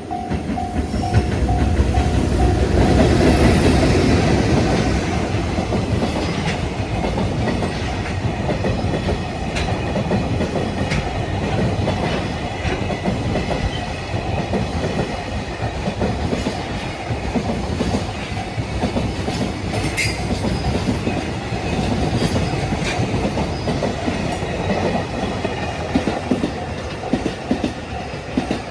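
JR Freight EH200 electric locomotive passing close by, loudest a few seconds in, followed by a long string of Koki container wagons rumbling past with a rhythmic clickety-clack of wheels over rail joints. A level-crossing bell keeps ringing underneath and comes through clearly near the end.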